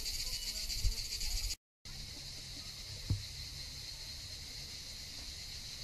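Steady, high-pitched buzzing of a summer cicada chorus. It cuts out for a moment about one and a half seconds in, and there is a faint knock about three seconds in.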